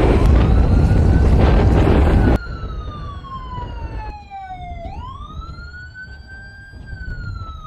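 A loud steady roar of aircraft noise cuts off suddenly about two and a half seconds in, leaving a siren wailing. The siren's pitch falls slowly, sweeps quickly back up about five seconds in, holds briefly, and then falls again.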